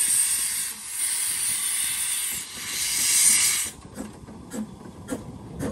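Narrow-gauge steam locomotive hissing steam in three long surges, stopping abruptly a little under four seconds in, followed by a run of light, regular clicks about two a second.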